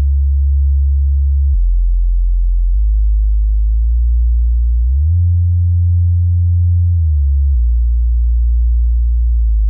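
Subwoofer test tones: deep steady bass sine tones that step to a new pitch every second or two. About five seconds in the tone glides up to a higher bass note, and it glides back down about two seconds later.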